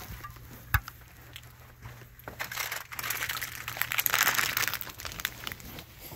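Rustling and crinkling handling noise with scattered clicks and knocks. There is a sharp knock less than a second in, and a louder stretch of rustling from about two and a half to five seconds in.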